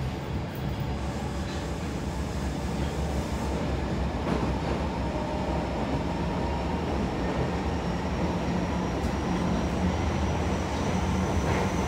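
Running noise inside an Osaka Metro 30000 series subway car under way: a steady rumble of wheels on rail and running gear, with a faint high whine that rises slowly through the second half.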